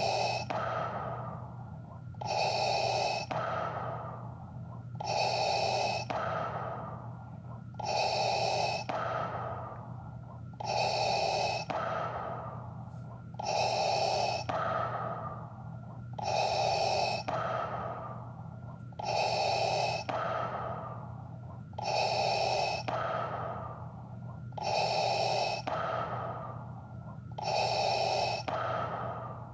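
Darth Vader's mechanical respirator breathing: a hissing, masked inhale and exhale repeating evenly, about one breath cycle every two to three seconds, over a faint steady low hum.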